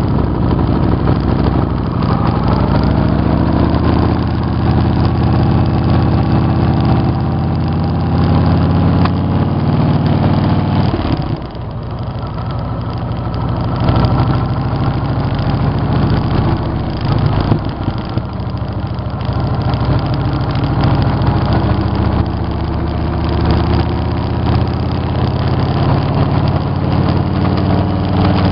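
V-twin motorcycle engine running as the bike pulls out and rides along, picked up by a camera mounted on the bike. The engine note drops briefly about eleven seconds in, then picks up again.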